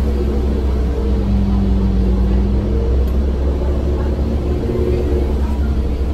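Orion VII transit bus running, a steady deep rumble with a low hum running through it.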